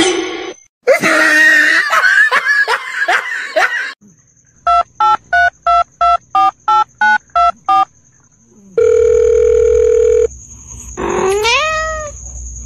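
Telephone keypad tones, about ten short beeps at a steady pace, followed by a steady telephone tone for about a second and a half, dubbed over a finger pressing a cat's face like buttons. Before them comes a scuffle with a run of short squeals, and near the end a short rising, wavering cry.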